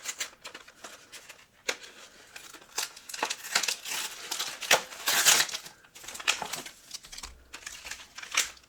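A Pokémon card blister pack being worked open by hand: plastic packaging crinkling and crackling in a run of short sharp bursts, with bits of tearing, loudest about five seconds in.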